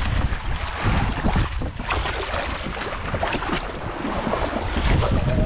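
Wind buffeting the microphone on a boat at sea, with waves splashing against the hull; an irregular rumbling and washing noise.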